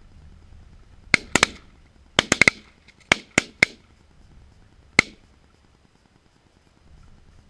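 Volley of shotgun shots from several hunters firing together: about ten sharp blasts within four seconds, several coming in quick twos and threes, with a last single shot about a second and a half after the rest.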